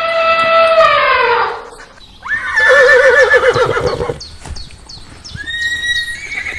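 Horse whinnying: a loud neigh about two seconds in that starts with a sharp rise and quavers as it falls away. Before it comes a held high-pitched call that ends about a second and a half in, and fainter short ticks follow.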